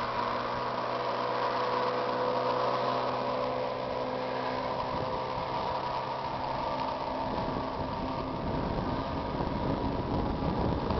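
20 hp Mercury outboard motor running steadily under way, a continuous drone holding one pitch. In the second half a low rumbling noise rises beneath it.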